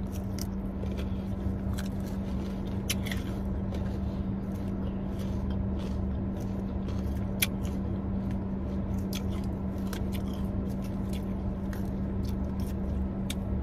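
Chewing and eating, with scattered short mouth clicks and smacks, over a steady low hum with a constant drone from the air conditioning.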